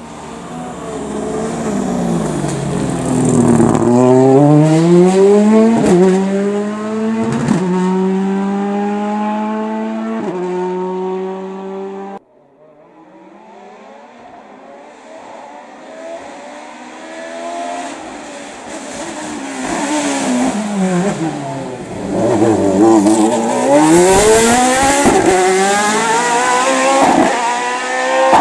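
Racing car engines at full throttle up a hillclimb course. The first car's engine drops in pitch as it slows into a corner, then revs hard out of it, rising and breaking at each quick upshift. After a sudden cut about twelve seconds in, a second car approaches and does the same, slowing and then accelerating through its gears.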